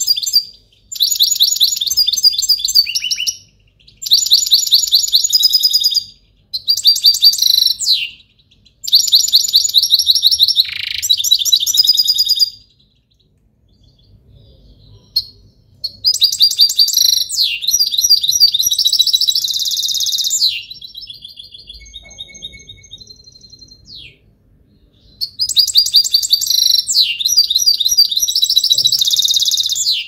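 Caged finch singing close by: loud, rapid, high twittering phrases a few seconds long with short pauses between them, a quiet spell of a few seconds about halfway, and a few softer single calls before the song resumes.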